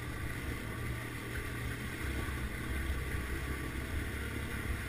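Small single-cylinder four-stroke dual-sport motorcycle engine running steadily as the bike rides along.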